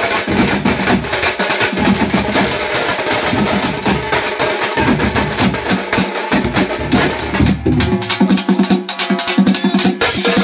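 A street band of drummers plays a fast, loud rhythm, with large bass drums and smaller side drums beaten with sticks. About eight seconds in, the deep bass strokes drop out and the quicker, higher drumming carries on.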